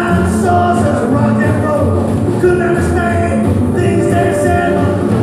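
Live rock and roll band playing: upright double bass, acoustic and electric guitars and drums, with a steady walking bass line.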